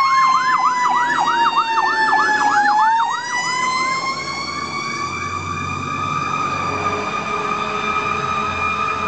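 Fire truck sirens: an electronic siren yelps rapidly, about five sweeps a second, over a long wailing tone. About three seconds in the yelp stops and the wail carries on, slowly rising in pitch, with a heavy truck engine rumbling as a ladder truck passes close by.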